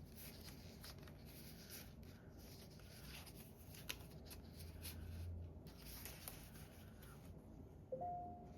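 Faint handling of paper and card: soft rustles and scattered small clicks as journal pieces are moved and fitted. A brief steady tone sounds near the end.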